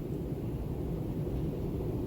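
Steady low wind ambience: a deep, even rumble without gusts or breaks.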